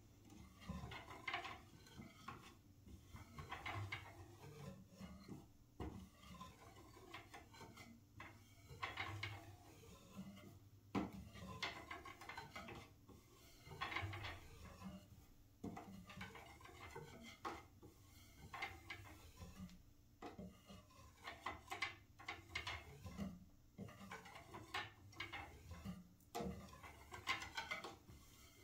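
Fingertips tapping on the turned wooden spindles of a bow-back Windsor chair. The taps are quiet and come in quick, irregular clusters with short pauses between them.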